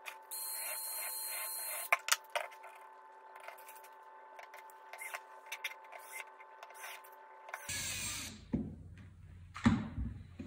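Makita 18 V cordless drill running in two short bursts while drilling small holes in thin plywood: a whir of about a second and a half just after the start, and a brief one about three-quarters of the way through. Light clicks and knocks of the bit, drill and wood being handled come in between.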